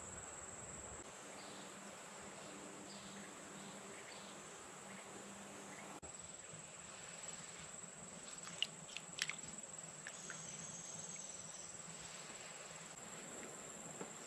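Steady high-pitched drone of insects such as crickets in woodland, under faint outdoor background noise. A few light, sharp clicks and taps about nine seconds in come from wet potato slices being handled in a bowl of water.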